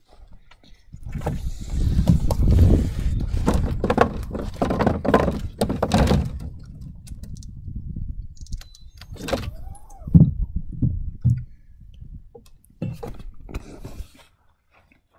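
Homemade pinsetter resetting bowling pins tied to paracord: the pins clatter and knock against each other and the plywood lane in a dense run as they are hauled up. A few separate knocks follow as they are lowered back into place.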